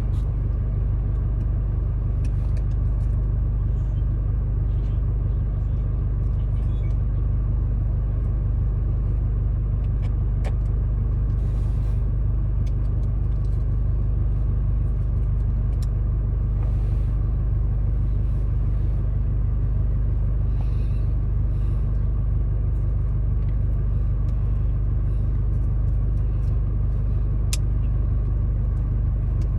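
Car engine idling, heard from inside the cabin as a steady low rumble, with a few faint clicks from handling parts.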